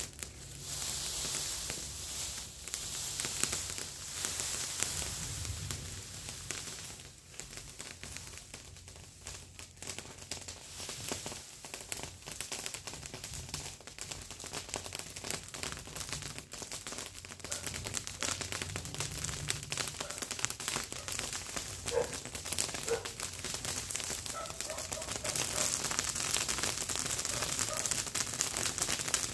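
A pile of dry brush and leaves burning with dense, irregular crackling, mixed with the rustle of dry vegetation as the pile is stirred. The crackling grows louder near the end as the fire takes hold.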